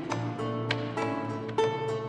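Instrumental music: notes on a plucked string instrument are picked in a quick, even sequence over a low held tone.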